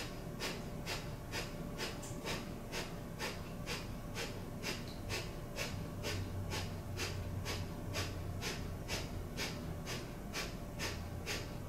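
A woman doing breath of fire: rapid, rhythmic breathing through the nose with the mouth closed, short sharp puffs of air driven by the belly, about two a second and steady in pace.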